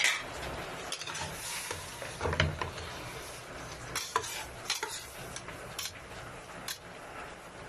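Metal spoon stirring chunks of chicken in a stainless steel pot, with scattered clinks and scrapes against the pot's sides over the sizzle of the meat sautéing.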